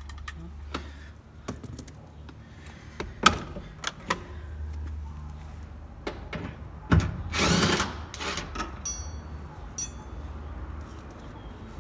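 A 15 mm socket wrench undoing the seat-to-chassis bolts. Scattered metal clicks and knocks, a louder rasping burst about seven seconds in, and two quick runs of fine clicks near the end.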